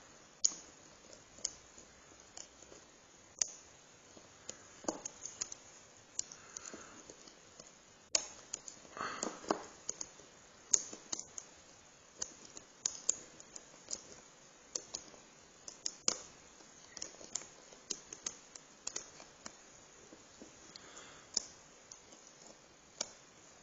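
Lock pick and tension wrench working the pin stack of a Chubb padlock: many small, irregular metallic clicks and ticks as pins are lifted and set, with the lock in a false set from its security pins.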